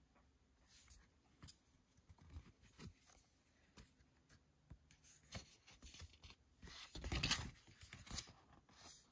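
Paper handling: stiff album cards and sheets rustling and sliding against each other, with light taps. A louder, longer rustle comes about seven seconds in, as a folded paper brochure is opened.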